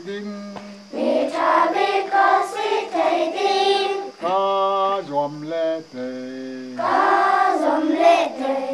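A group of schoolchildren singing together in unison without accompaniment, holding long notes, the many voices growing fuller about a second in.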